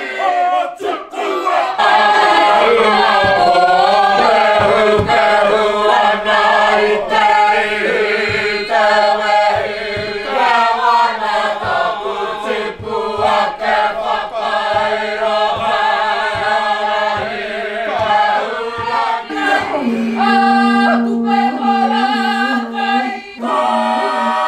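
Māori kapa haka group of men and women chanting and singing in unison, with regular low thumps under the voices. A low note is held steadily from about twenty seconds in.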